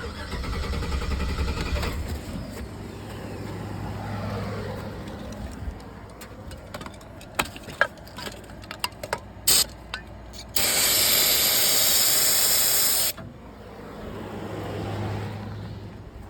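Aerosol can of starting fluid sprayed into a pickup's intake: a short burst, then a steady hiss of about two and a half seconds, the loudest sound here. The truck cranks but won't start on its own, a fault the owner traced to the MAP sensor. Before the spray, engine noise at the start dies away, followed by several sharp clicks.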